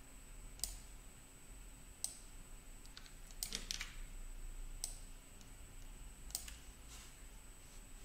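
Computer mouse and keyboard clicks: single sharp clicks every second or two, with a quick run of several clicks about three and a half seconds in.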